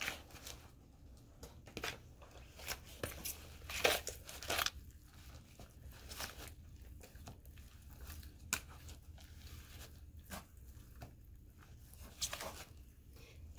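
A metal spoon stirring and scraping a sand-and-glue slime mixture in a plastic bowl: irregular short scrapes and clicks, a few louder than the rest.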